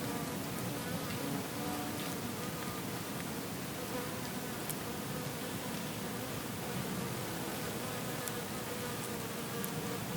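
Bees buzzing steadily over a soft, constant background hiss.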